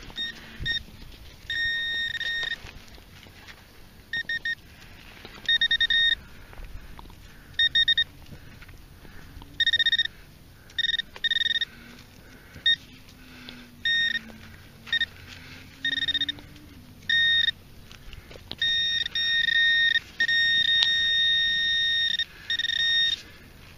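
Garrett handheld pinpointer sounding its high alert tone in on-off bursts of uneven length as the probe is moved through loose soil around a buried metal target, then sounding almost continuously for the last five seconds while the tip sits close to the metal.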